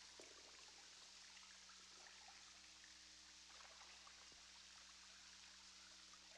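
Near silence: faint trickling and dripping water ambience of a wet tunnel over a steady low hum.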